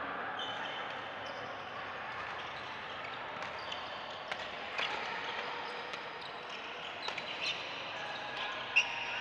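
Badminton rackets hitting shuttlecocks in several rallies, sharp pops at irregular intervals with the loudest one near the end. Shoes squeak on the court floor against the steady echoing hubbub of a large sports hall.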